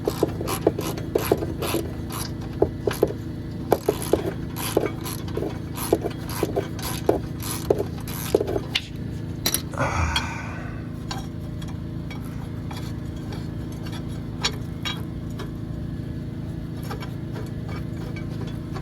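Hand ratchet clicking in quick runs as a stubborn bolt on the old brake proportioning valve is worked loose, followed by a brief hiss about ten seconds in and a few scattered clicks, over a steady low hum.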